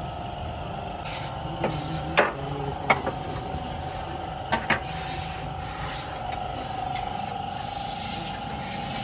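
A machine hums steadily with a constant mid-pitched whine, broken by a handful of sharp metallic knocks and clicks of tools being handled, the loudest about two and three seconds in and a pair near the middle.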